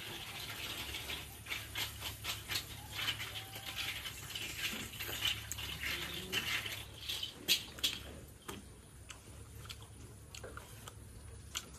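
Crispy deep-fried chicken thigh being torn apart by hand and bitten: a run of crackling, crunchy clicks from the fried crust, thick for most of the stretch and sparser near the end.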